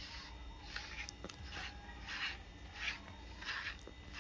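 A grooming brush rubbed in repeated strokes through a Chihuahua's short coat: soft, faint rustles coming about three every two seconds.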